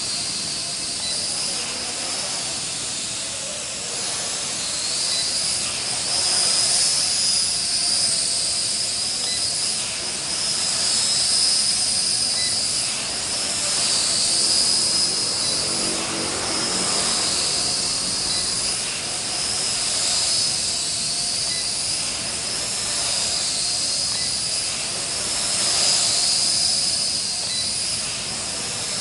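Small RC quadcopter's motors and propellers running in flight, a steady high-pitched whine over a hiss, the whine's pitch wavering up and down as it hovers and manoeuvres.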